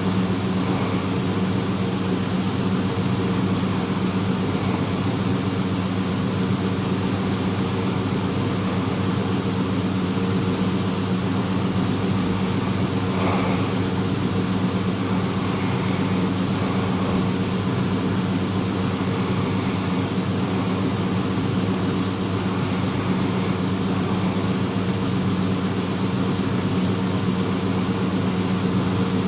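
A person snoring, faint breathy rasps recurring about every four seconds, over a loud steady hum.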